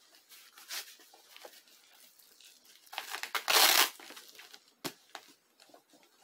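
Hook-and-loop (Velcro) wrist strap of a pink Venum boxing glove being ripped open and pressed shut as the glove is put on. A short rip comes near one second and a long, loud rip comes around three and a half seconds, with soft rustling between and a sharp tap near five seconds.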